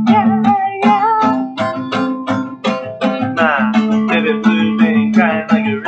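Guitar being strummed in a quick, even rhythm, with the chords ringing over a steady low note.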